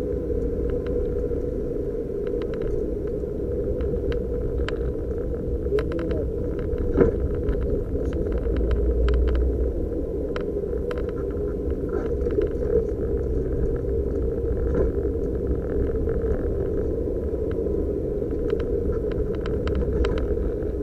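Suzuki Jimny JB23W driving along, heard from inside the cabin: a steady drone of engine and road noise with scattered light clicks, swelling slightly about halfway through.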